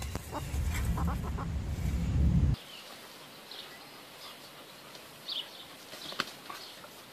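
Chickens calling, over a loud low rumble. About two and a half seconds in the sound cuts to a quieter stretch with short high chirps and a single sharp click.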